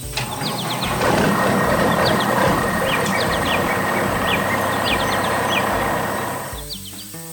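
A heavy machine engine running steadily for about six seconds, swelling in over the first second and fading out near the end, with birds chirping over it.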